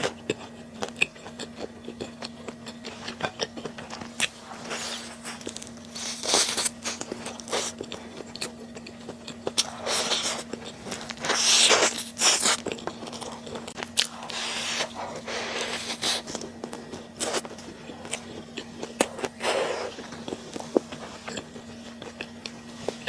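Close-miked eating of spicy stir-fried webfoot octopus (jjukkumi bokkeum): wet chewing and biting with many sharp mouth clicks and several longer smacking rushes, the loudest near the middle. A faint steady hum runs underneath.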